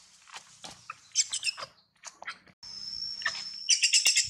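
Baby macaque crying in distress: a string of shrill, short squeals, then a loud rapid run of squeals near the end as the mother grabs and hugs him. A steady high whine also starts about two and a half seconds in.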